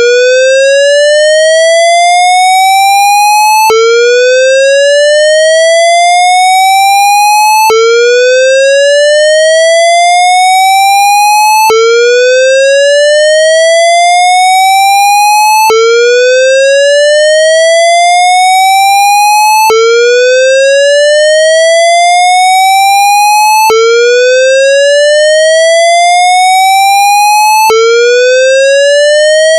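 Synthesized square-wave fire alarm whoop tone, a recreation of the Siemens MXL-V voice-evacuation whoop. It rises steadily through one octave over four seconds, then drops back abruptly and starts again, repeating about seven times at a constant loud level.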